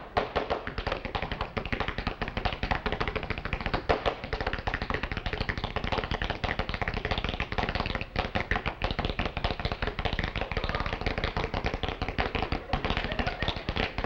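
Rapid, continuous tapping and clattering, dense and unbroken, with a short dip a little past the middle.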